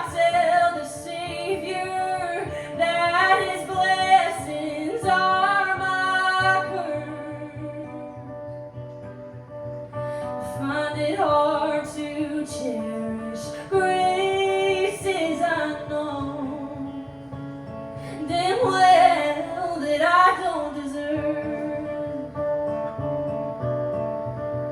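A woman singing a country song live to her own acoustic guitar. Her voice drops out for a few seconds around the middle and again near the end, leaving the guitar playing alone.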